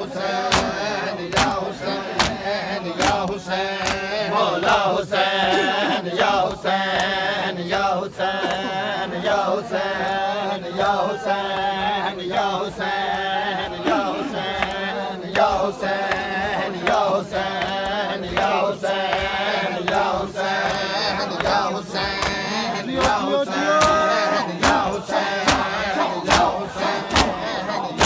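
Crowd of male mourners chanting a lament together, with a steady rhythm of sharp hand slaps on bare chests (matam) beating time under the voices.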